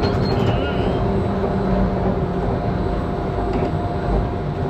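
Disneyland Monorail running along its beam, heard from the front cabin: a steady electric drive hum over a continuous rolling rumble.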